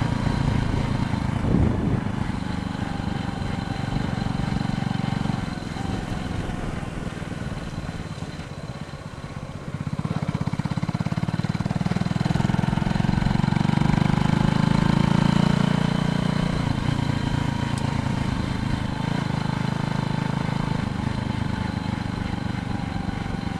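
Bicycle ride sound: wind buffeting the microphone and tyre rumble on the road, growing louder about ten seconds in, with a faint wavering hum above it.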